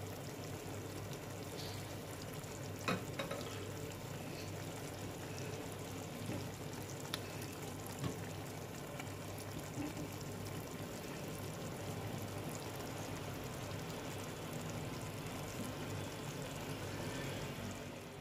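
Prawn curry sizzling and simmering in a frying pan over medium heat, stirred with a spatula, with a few light knocks of the spatula against the pan.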